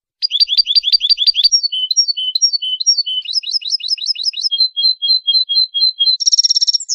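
European goldfinch singing a Málaga-style song: a fast series of repeated high notes, then mixed twittering trills and repeated two-note calls, a short buzzy passage near the end and a quick falling note.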